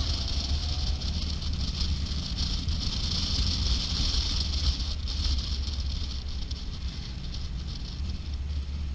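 Motorcycle on the move: a steady low engine and wind rumble, with a steady high hiss over it.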